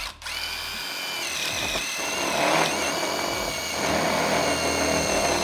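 Cordless DeWalt drill-driver driving a self-tapping screw through a wall bracket into a steel handrail tube. The motor runs steadily under pressure, its whine dropping slightly in pitch about a second in as the screw bites into the metal.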